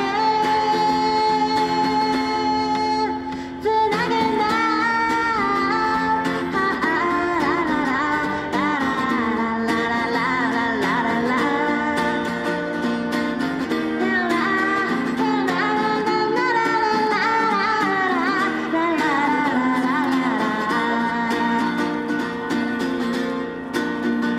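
A woman singing a song while strumming her acoustic guitar, performed live, with a short break in the singing just before four seconds in.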